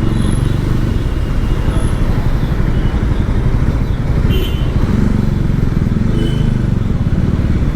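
Motorcycle engine running while riding in traffic, with steady wind and road noise.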